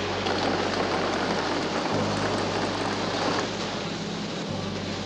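Water jetting from a tanker truck's spray rig in a dense rushing spray onto a car, strongest for the first three seconds or so and then easing. Under it, background score with a held low bass note that shifts twice.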